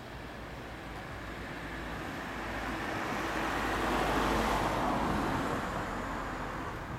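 A road vehicle passing by, its noise swelling to its loudest about four seconds in and then fading away.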